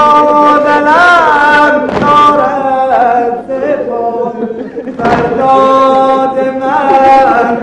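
A single voice chanting a slow, mournful lament in long held notes with quavering ornaments, broken by a couple of sharp knocks about two and five seconds in.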